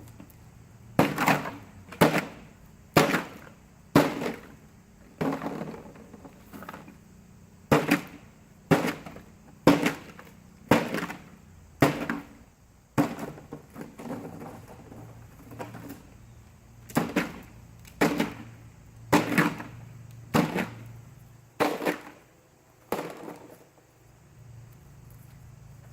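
A long series of sharp loud bangs, roughly one a second, with a softer stretch in the middle. They stop a few seconds before the end.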